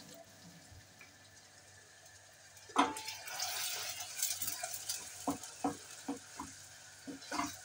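Onions frying in oil in a stainless steel pot, sizzling, stirred with a wooden spoon that knocks against the pot several times. A sharp knock about three seconds in starts the stirring, after a quieter start.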